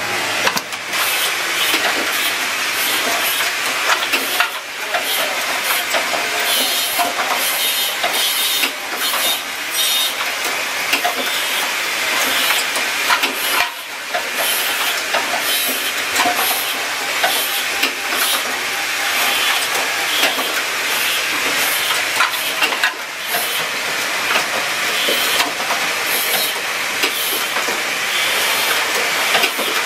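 Automatic switch assembly machine running: continuous rapid mechanical clatter and clicking with a steady hiss.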